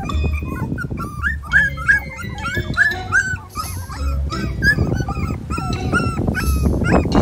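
Very young puppies whimpering and squeaking in a steady string of short high calls, two or three a second, with scuffling noise growing in the second half.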